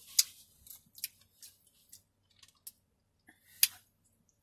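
Close-up eating sounds from someone chewing a taco: sharp wet mouth clicks and smacks, the two loudest just after the start and about three and a half seconds in, with fainter clicks between.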